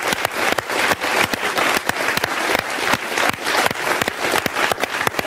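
Audience applauding: many people clapping at once in a dense, steady patter.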